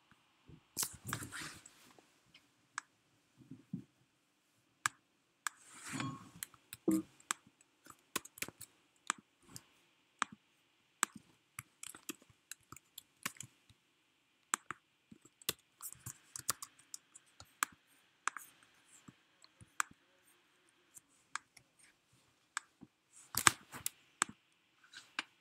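Scattered clicks and taps from a laptop's keyboard and trackpad, coming irregularly, up to several a second. A few louder scuffing knocks come about a second in, around six seconds in and near the end.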